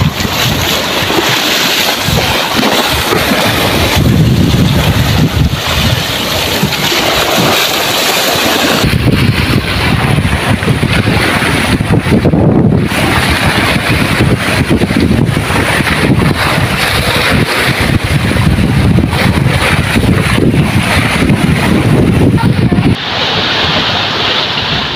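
Strong wind gusting over the microphone above choppy sea, waves washing and splashing along the shore. Near the end the wind rumble drops and the splash of waves at the water's edge comes forward.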